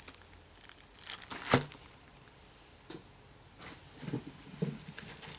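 Plastic bag of thread cones crinkling and rustling as it is handled and set aside, with a sharp click about a second and a half in and softer rustles near the end.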